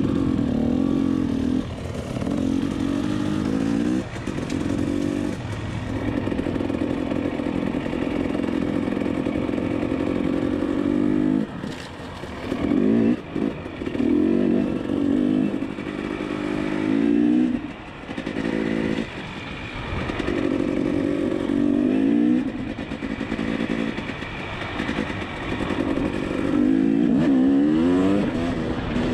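Dirt bike engine running under the rider, revving up and easing off over and over as the throttle opens and closes, with a few short drops in revs where the throttle is shut off or a gear is changed.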